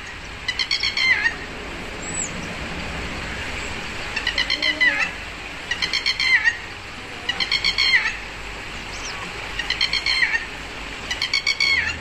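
Red-wattled lapwing calling: six short runs of quick, shrill, repeated notes, each run under a second long. This is the bird's 'did-he-do-it' alarm call. After the first run there is a pause of about three seconds, then the runs come every second or two.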